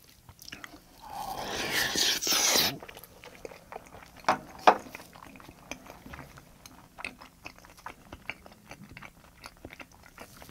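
Close-miked chewing of a mouthful of salmon sashimi: a louder wet mouth noise in the first couple of seconds as the food goes in, then a run of small wet smacking clicks as it is chewed, with two sharper ones a little over four seconds in.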